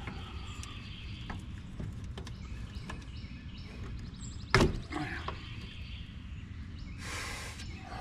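Hands working a rubber pressure-switch hose off its fitting inside a gas package unit. One sharp knock about halfway through and a short hiss near the end, over a steady low rumble.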